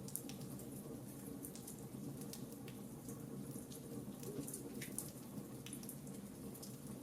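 Fire crackling: irregular sharp pops and snaps over a steady low rush of burning flames.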